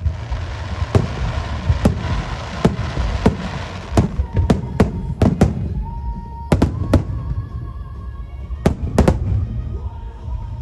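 Aerial firework shells bursting in a rapid, irregular series of sharp bangs, with a dense hiss over the first half. Music plays underneath.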